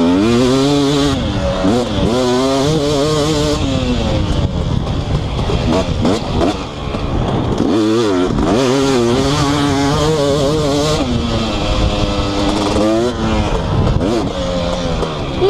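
2018 KTM 250SX's single-cylinder two-stroke engine with an FMF Powercore 2 silencer, ridden hard. Its pitch climbs again and again and drops sharply each time the throttle is shut off.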